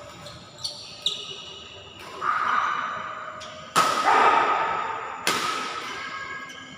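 Badminton racket strikes on a shuttlecock: light hits early on, then two sharp, loud cracks about four seconds in and a second and a half later, each trailing off in echo.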